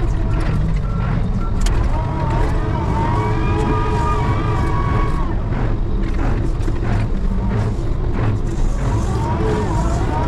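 A heavy snow-clearing machine's engine running steadily under load. Its backup alarm beeps a few times in the first second or two, and a wavering whine rises over the engine a few seconds in.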